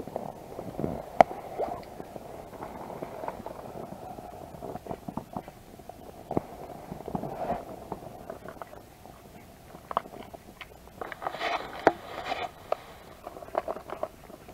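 Rustling, scattered clicks and knocks of fishing gear and clothing being handled in an inflatable boat, with a denser rattle of clicks about eleven seconds in.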